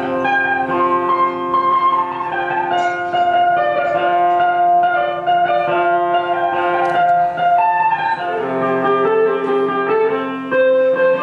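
Sape', the Dayak boat-shaped plucked lute, playing a steady melody of ringing, overlapping notes as dance accompaniment.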